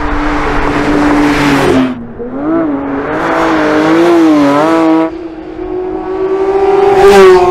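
Porsche 992 GT3's 4.0-litre naturally aspirated flat-six driven hard on a track, the engine note rising and falling with throttle and gear changes. It dips briefly about two seconds in and again about five seconds in, then climbs strongly to its loudest near the end and cuts off suddenly.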